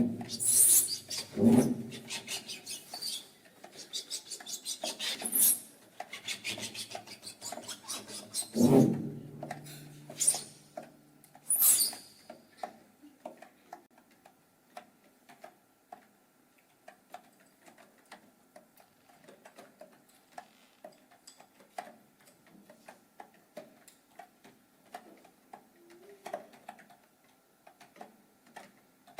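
Musical instruments played with extended techniques to imitate everyday sounds. For about twelve seconds there are loud scrapes and swishes, then a quiet run of rapid, irregular clicks.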